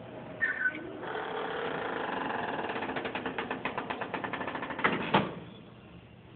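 A fast mechanical rattle of about seven ticks a second over a steady hum, ending in two sharp clacks of a metal door latch and handle about five seconds in.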